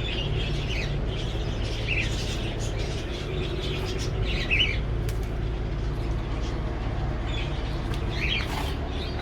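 Small cage birds chirping every few seconds in short calls, over a steady low hum.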